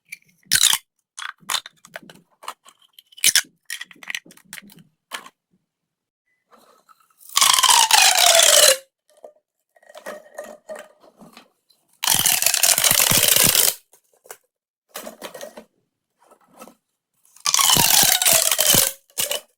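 Plastic pop tubes being pulled and squashed: scattered single pops and clicks, and three longer runs of rapid popping, each about a second and a half, with a tone inside that falls in pitch.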